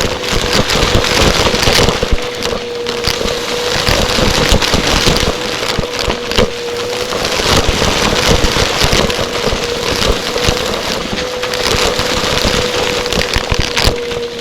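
Vacuum cleaner running, its motor giving a steady hum, with dense crackling and clicking as debris is sucked up.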